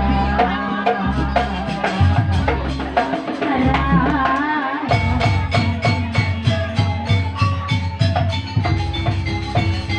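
Jaranan gamelan music with drums and chiming metal percussion. In the first half a wavering melodic line plays over heavy low drum strokes. About five seconds in it changes to a fast, even drum rhythm under held chiming notes.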